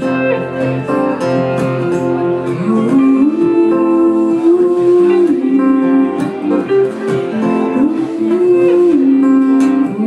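Live acoustic guitar strumming under a second guitar playing a slow lead line of long held notes that bend up and down: an instrumental break in the song.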